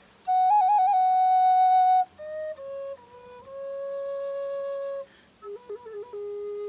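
Solo wooden end-blown flute playing a slow, breathy melody. It opens on a held high note with a quick trill, steps down through a few short notes to a longer middle note, and after a brief pause plays a lower note, ornamented with a trill and then held.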